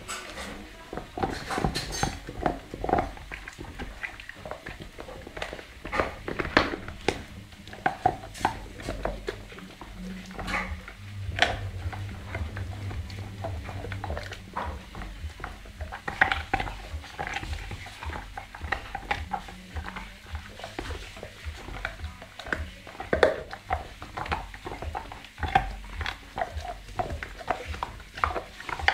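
American pit bull terrier gnawing on a meaty bone, teeth crunching and cracking on it in irregular clicks.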